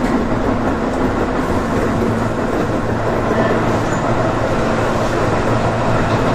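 Electric commuter train running, heard inside its front car: a steady rumble of wheels on rail with a low hum.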